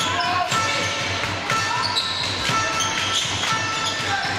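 A handball bouncing on the court and players' shoes squeaking during play, echoing in a large sports hall.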